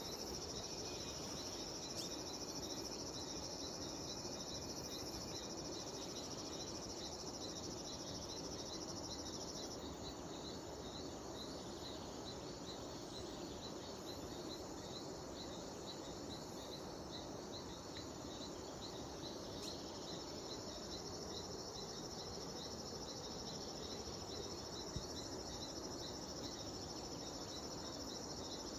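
Cicadas droning in a steady high buzz that stops about ten seconds in and starts again near twenty seconds. Under it, evenly repeating insect chirps carry on throughout, over a faint rural background hiss.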